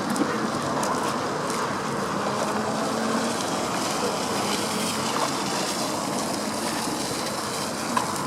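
Steady background noise of the shoreline, with a faint low hum under it and a single brief click near the end.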